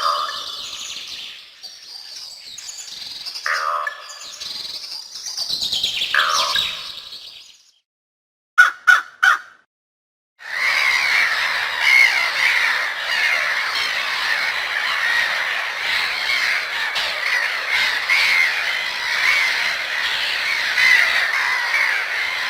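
Crows calling in a string of separate recordings: several harsh caws over the first eight seconds, then three quick caws, a short silence, and from about ten seconds in a dense, continuous chatter of a large flock.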